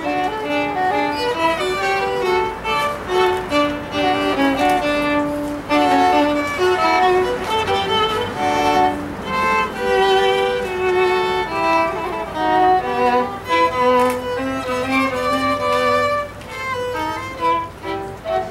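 Two violins playing a duet, a lower part and a higher part moving together in short bowed notes.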